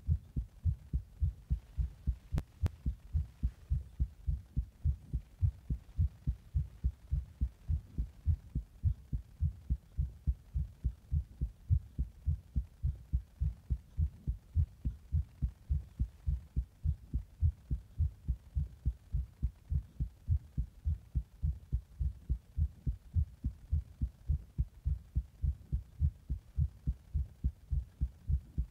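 Human heartbeat heard through a chest recording, a steady run of evenly spaced low thumps. It is the uploader's heart after drinking a Monster energy drink.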